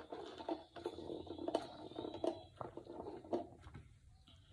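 Drink sucked through a plastic straw from a large paper soda cup, a rapid crackling, gurgling rattle that stops shortly before the end.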